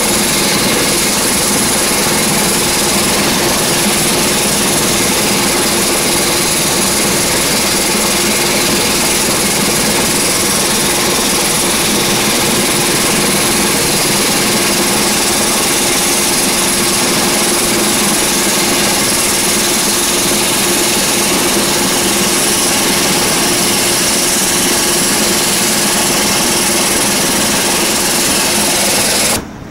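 Saab 340 turboprop engines running steadily on the ramp: a loud, even roar with a steady whine, cutting off abruptly near the end.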